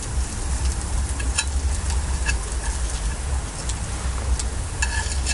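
Korean-style chive pancake sizzling in a frying pan on a portable gas stove, with a few sharp ticks from chopsticks knocking the pan. A low steady rumble runs underneath.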